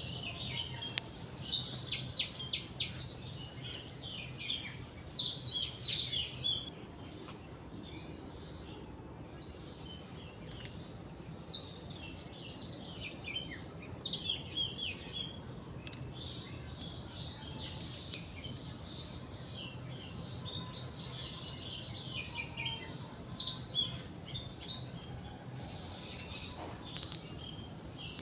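Several small birds chirping and twittering in short, busy bursts throughout, over a faint steady low hum.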